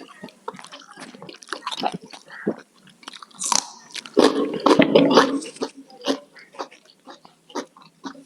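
Close-miked eating: a person biting and chewing food, with a run of short crunches and wet smacks and a louder, denser stretch of chewing about halfway through.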